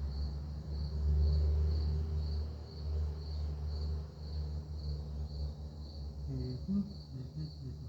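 A cricket chirping steadily, about two chirps a second, over an uneven low rumble.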